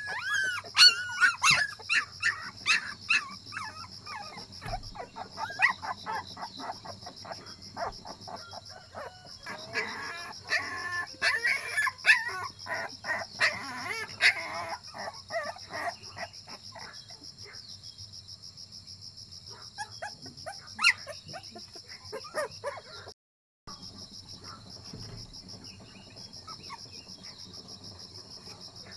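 Rapid, high yelping and whining calls from an animal, dense for about the first half and then thinning to a few near the end, over a steady high insect drone.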